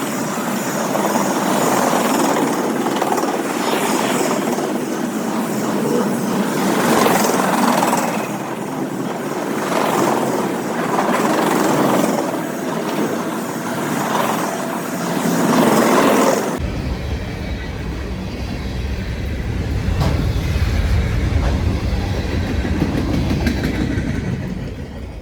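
Freight train cars rolling past at trackside, a steady rush of wheels on rail with recurring clickety-clack pulses. About two-thirds of the way in, the sound changes abruptly to a low, muffled rumble.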